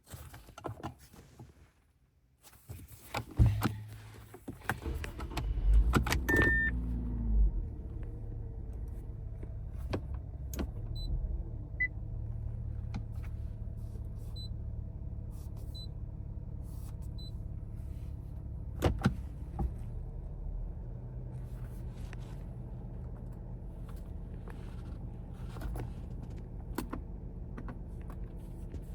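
The 2021 Infiniti Q50's 3.0-litre twin-turbo V6 starting: a few clicks, then the engine fires about three seconds in, flares briefly and settles into a steady idle.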